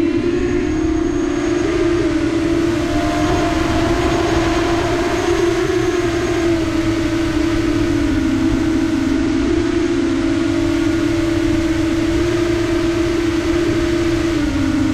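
Quadcopter drone motors and propellers buzzing steadily in flight, a loud whine whose pitch shifts a little as the throttle changes, dipping about six seconds in and again near the end, over a rough low rumble.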